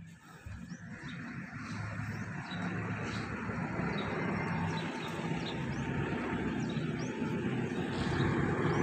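A vehicle engine running, building up over the first few seconds and then holding steady, with faint bird chirps above it.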